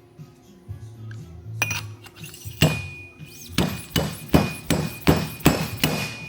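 Fork seal driver striking repeatedly, driving the seal into a motorcycle fork slider until the clip groove shows: about nine sharp metallic knocks with a ringing note, coming faster in the second half, over background music.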